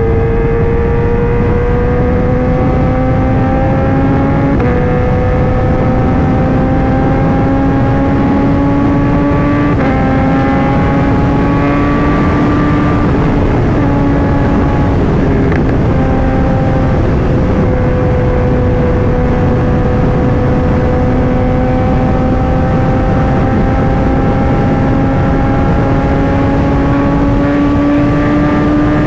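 Kawasaki ZX-10R inline-four engine pulling under way, its pitch climbing slowly and dropping back at upshifts about 5, 10 and 13 seconds in, then holding fairly steady, over a steady rush of wind and road noise.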